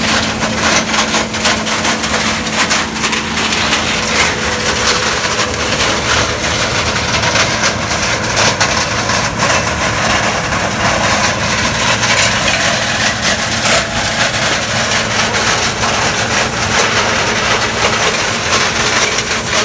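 Gleaner combine running during soybean harvest: a steady engine hum with a dense run of small cracks and clicks over it.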